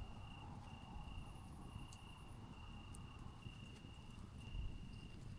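A night insect trilling at one steady high pitch, in stretches of about a second broken by brief pauses, over a low rumble.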